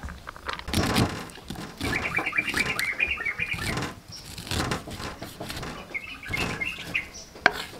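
A cleaver scraping diced vegetables across a metal tray, then slicing kernels off an ear of corn on a wooden chopping board in repeated rasping strokes. A bird chirps in quick runs about two seconds in and again near six seconds.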